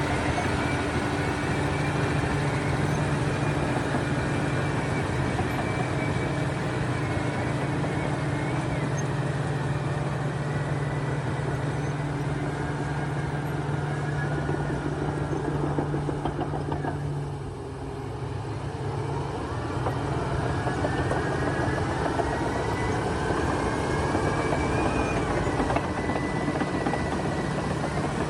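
Heavy road-construction machinery engine running steadily. About two-thirds of the way in it drops off briefly, then picks up again with a rising whine.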